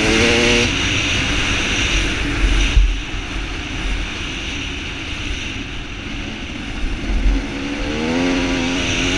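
Enduro dirt bike engine heard from a helmet camera: it revs up in rising pitch at the start, runs at lower revs under heavy wind noise through the middle, then revs up again near the end.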